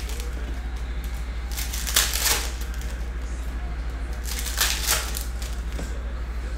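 Foil card-pack wrappers being torn open and crinkled by hand, in two short crackly bursts about two and about four and a half seconds in, over a steady low hum.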